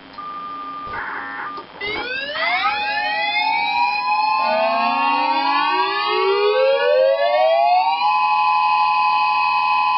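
Several electronic warning sirens start on the steady alert signal after a short beep. Their tones wind up in pitch one after another and settle about 8 seconds in into a sustained, even, multi-tone wail.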